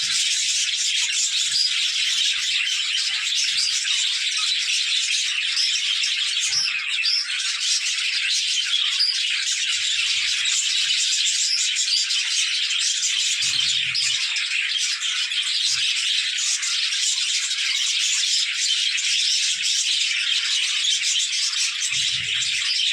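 A flock of budgerigars chattering together, a dense, steady, unbroken twittering, with a few soft low thumps now and then.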